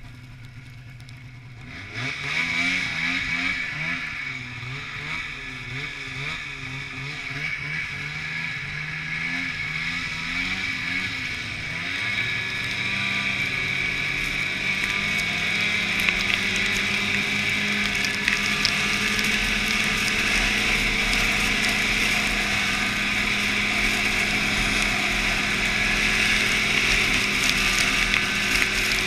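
Snowmobile engine running, its pitch rising and falling for the first several seconds, then settling into a steadier, gradually louder drone with a high whine on top.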